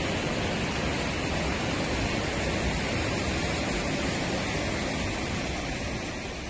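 Floodwater rushing fast along a street, a steady loud rush of turbulent water.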